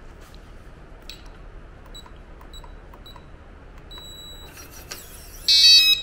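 RV Lock V4 keyless door handle's keypad beeping as a code is punched in: four short high beeps, then a longer one. Near the end comes a louder half-second buzz as the new code is accepted.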